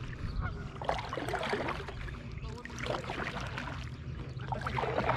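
Water splashing and sloshing against a kayak in irregular bursts over a steady low rumble.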